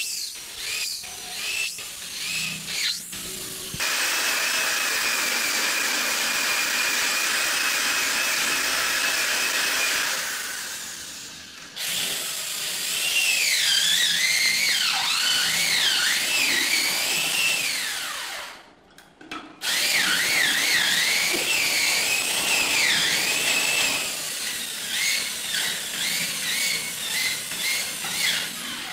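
Handheld electric drill boring into a wooden stair handrail, running in long stretches with a whine that wavers up and down in pitch as the bit loads and frees, stopping briefly about two-thirds through. A few short knocks come before the drilling starts.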